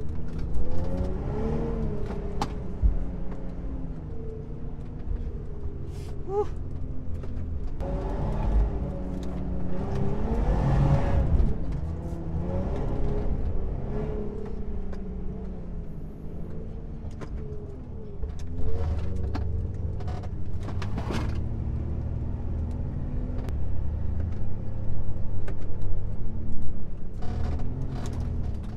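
Mitsubishi Pajero's engine revving up and easing off again and again as it drives over sand dunes, its pitch rising and falling. There are occasional short knocks and rattles.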